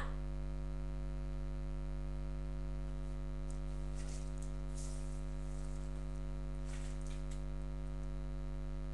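Steady electrical mains hum with a stack of evenly spaced overtones, picked up by the recording. A few faint short noises come through around the middle and near the end.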